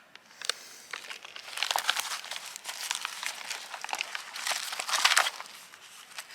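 Sheets of a bullet-torn ream of printer paper being pulled apart and rifled through by hand, rustling and crinkling in uneven bursts, loudest about five seconds in.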